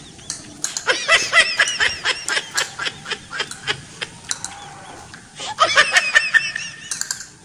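High-pitched laughter in quick 'ha-ha' pulses, about five a second, in two bouts, the second starting about five and a half seconds in.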